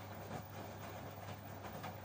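LG front-loading washing machine on a quick prewash: the drum turning, wet laundry tumbling and sloshing, and water spraying in at the door, over a steady low motor hum.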